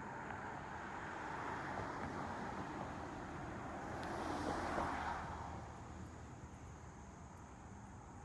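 A vehicle passing by: tyre and engine noise swells to a peak about halfway through, then fades away.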